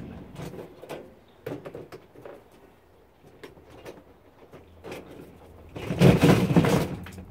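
Clatter and scraping from inside a dishwasher tub being taken apart. A few light knocks come about a second and a half in, then a louder rattle of about a second around six seconds in, as the wire dish rack is dragged out along its rails.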